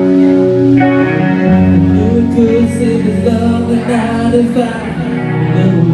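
Live acoustic cover of a power ballad: guitar strumming held chords, joined about two seconds in by a man singing a wavering lead melody into a microphone.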